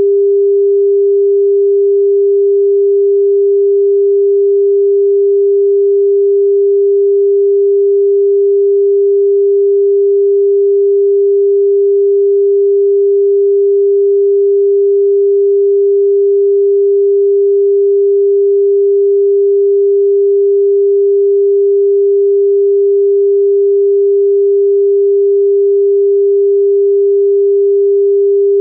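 Thai telephone dial tone: one steady, unbroken 400 Hz tone, signalling that the line is ready for dialling.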